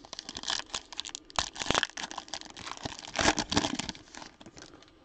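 Foil wrapper of a Panini Flux trading-card pack crinkling and tearing as it is opened by hand, in irregular crackly bursts that stop about four and a half seconds in.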